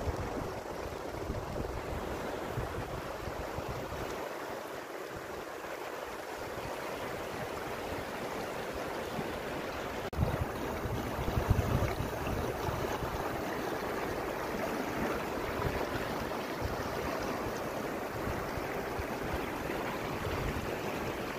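Shallow stream flowing, a steady rushing babble of water. Wind buffets the microphone now and then, most strongly about ten seconds in.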